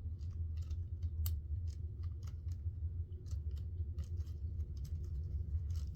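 Irregular small clicks and taps of hands handling small fursuit-head parts, about a dozen over the stretch, above a steady low hum.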